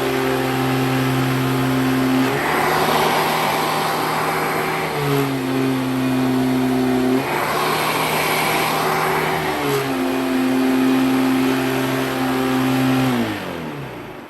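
1998 Hoover Elite Legacy Supreme upright vacuum cleaner running with a steady motor hum. Twice the pitch drops and a rush of air swells for a few seconds, then the pitch rises again. Near the end the motor winds down, falling in pitch and fading out. It sounds rougher than the owner expects, and he guesses it is the spindle or something else wrong with it.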